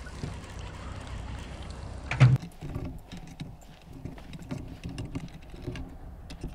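Footsteps on a dirt trail strewn with dry leaves: irregular light crunches and soft thuds over the last few seconds, after one short loud vocal sound about two seconds in.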